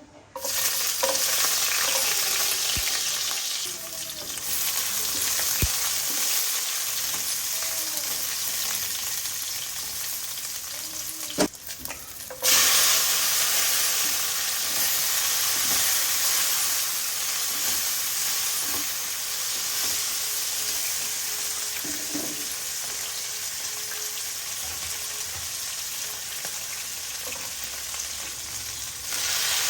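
Hot oil sizzling steadily in a frying pan while food cooks and is stirred. A sharp click comes about eleven seconds in, and the sizzle jumps louder a second later.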